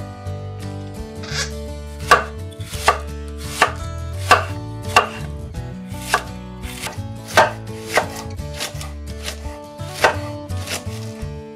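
Large kitchen knife shredding a red cabbage on a wooden cutting board: sharp, even cuts at about three every two seconds.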